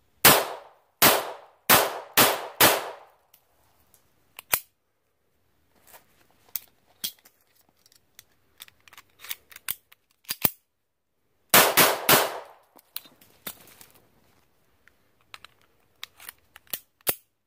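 A .380 Bersa Firestorm pistol firing remanufactured rounds: five shots in quick succession at the start, then a tighter string of about three shots past the middle. In between and near the end come fainter metallic clicks and clacks of the pistol being handled.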